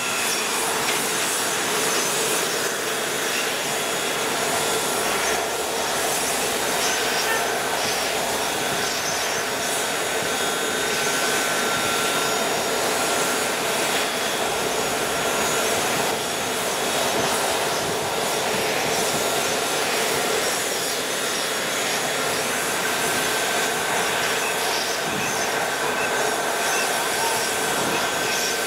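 Steady running noise of a parked Boeing 777-200 airliner at the gate: a continuous rushing hiss with faint steady whines that does not change.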